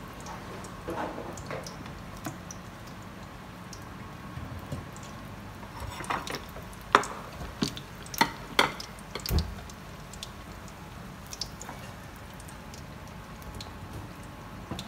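Spring rolls deep-frying in a wok of oil, a steady bubbling sizzle. Between about six and nine and a half seconds in come a few sharp clicks and knocks.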